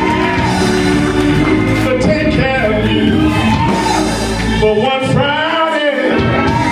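Loud gospel music: a lead voice singing over sustained keyboard chords and a steady bass.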